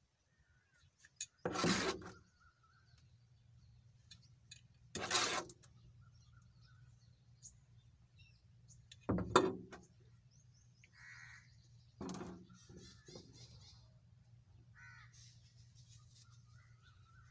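A metal ladle scooping thick palm jaggery syrup and scraping against the large pan: four short, harsh scrapes a few seconds apart, over a faint low hum.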